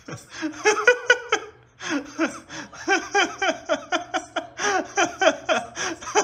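A person laughing without a break, a quick string of short 'ha' sounds about four a second, with a brief pause near two seconds in.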